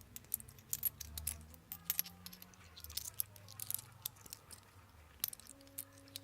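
Many quick, light, irregular clicks and taps of small hard objects being handled.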